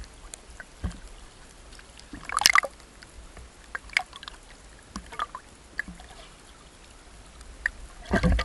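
Seawater sloshing and splashing right at the microphone as it bobs at the surface among swimmers, with scattered small splashes and drips. There is a louder splash about two and a half seconds in and a burst of splashing near the end.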